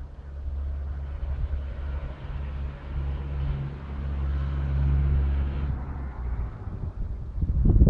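Beiben V3 dump truck's engine running with a steady low hum while its HYVA telescopic hydraulic cylinder raises the tipper body. The hum grows louder a few seconds in and dies away about six seconds in. Wind buffets the microphone near the end.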